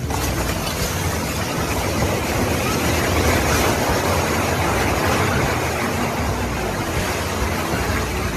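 Multi-storey apartment block collapsing in an earthquake: a loud, continuous rushing rumble of falling concrete and debris. It swells to its peak about three seconds in and then eases slightly.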